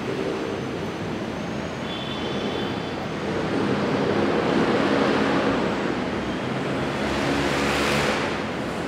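Steady road-traffic noise, swelling as vehicles pass, with one passing by loudly near the end.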